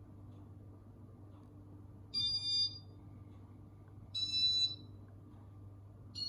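Casablanca Inteli-touch ceiling fan beeping electronically, a short half-second beep about every two seconds, three times, as its demo mode steps through the light settings. A steady low hum runs underneath.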